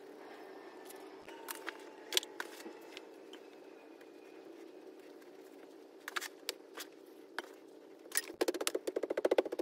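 Petrobond oil-bonded moulding sand being handled and pressed into a steel moulding flask: scattered soft taps and rustles over a steady low hum, turning about eight seconds in to a fast run of small pats as the sand is pressed down.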